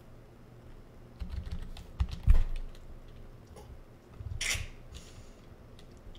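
Typing on a computer keyboard: two quick flurries of keystrokes, ending in one hard keystroke as the message is sent. A short breathy sound follows about four and a half seconds in.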